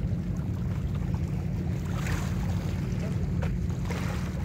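Wind buffeting the phone's microphone: a steady low rumble, with faint rises of hiss about two seconds in and near the end.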